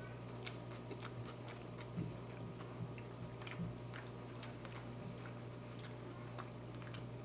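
A person chewing a mouthful of soft elk tongue taco in doubled corn tortillas, with small wet mouth clicks and a few soft thumps, over a steady low hum.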